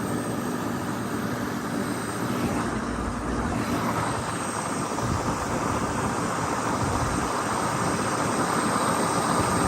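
Sonalika RX 60 tractor's diesel engine running steadily while the tractor drives along.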